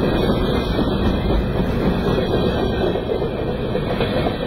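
Covered hopper cars of a BNSF freight train rolling past close by, a loud, steady noise of steel wheels running on the rail.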